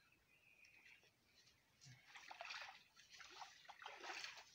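Faint, irregular splashing and trickling of stream water, starting about two seconds in, over near silence.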